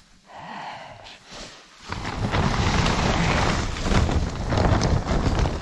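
Snowstorm wind buffeting the microphone: after a quieter start, a loud, rumbling rush sets in about two seconds in.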